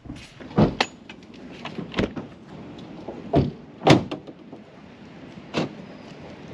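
A truck camper's rear door being shut and latched: a series of separate knocks and clunks, the loudest about four seconds in.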